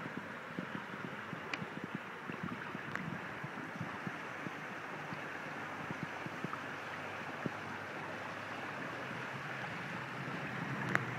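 Water rushing steadily along the hulls of a small sailing trimaran under way, mixed with wind noise, with a few faint ticks and one sharper click near the end.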